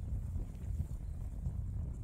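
Wind buffeting the microphone: an uneven low rumble with small irregular knocks.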